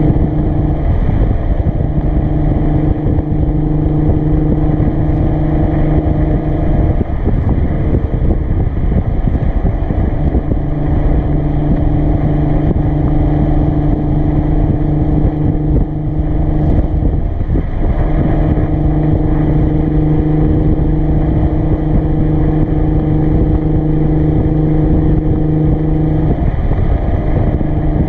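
Nissan 370Z's 3.7-litre V6 heard through a Motordyne cat-back exhaust while driving at a steady pitch, over road and wind rush. The steady exhaust tone drops out briefly three times, about a quarter of the way in, just past halfway and near the end, then comes back at the same pitch.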